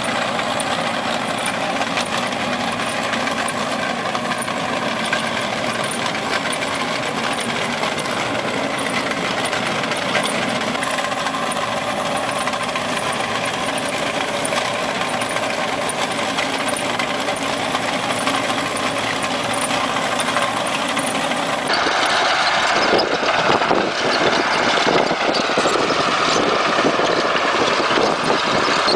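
Engine of a large self-propelled wheel trencher running steadily under load as it digs a drainage trench and lays corrugated drain tubing. Near the end the sound changes abruptly to an older tracked trencher working, rougher and louder.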